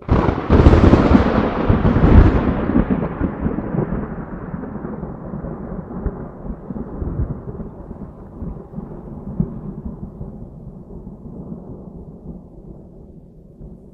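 Thunderclap: a sudden crack, a second loud peak about two seconds in, then a long low rumble that slowly dies away.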